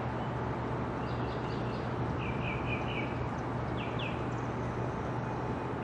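Steady outdoor street background noise with a low hum, over which a small bird chirps several times in short runs of quick, high notes.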